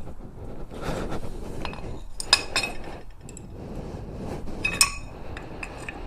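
Small metal motorcycle parts and tools clinking while being handled, with a few sharp ringing clinks about two seconds in and again near five seconds, amid softer handling and rustling noise.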